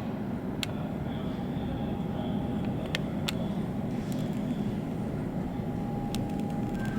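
Steady low rumble of airliner jet engines with a faint steady whine, heard through terminal glass, and a few light clicks about half a second, three seconds and six seconds in.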